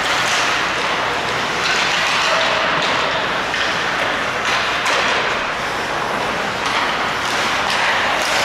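Ice hockey game in play: a steady hiss of skates on the ice, with scattered sharp clacks and knocks from sticks and the puck.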